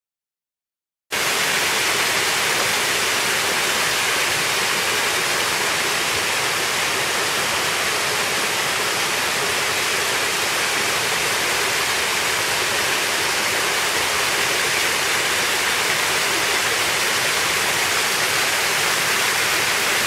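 A small waterfall, water splashing down a mossy rock face in several thin streams, a steady rushing hiss that cuts in suddenly about a second in.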